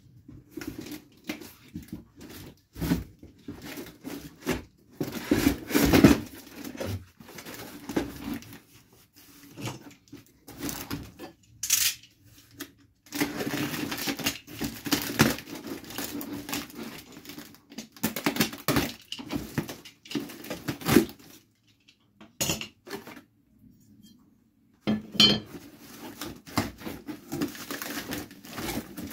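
Parts of a table saw and its packaging being handled during unboxing: irregular metallic clatter, knocks and rustling. There is a short lull about three quarters of the way through.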